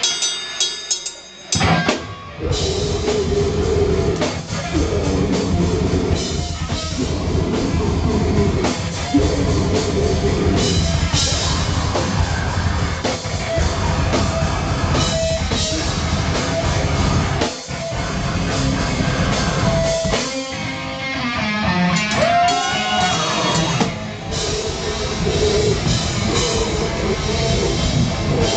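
Live loud rock band playing, drum kit driving under the music, after a brief break of about two seconds at the start.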